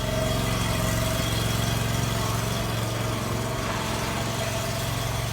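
An engine running steadily at an even speed, coming in suddenly at the start.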